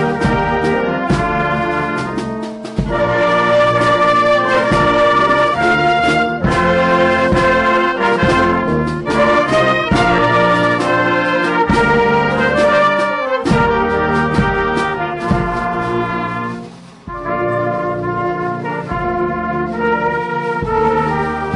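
Brass music, with trumpet- and trombone-like sustained notes over regular percussive beats and a short dip in level about three-quarters of the way through.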